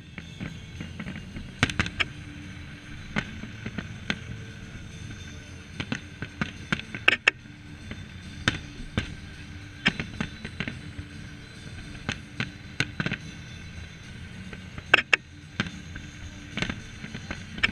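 Aerial fireworks shells bursting: sharp bangs at irregular intervals, some in quick clusters of two or three, over a steady low background rumble.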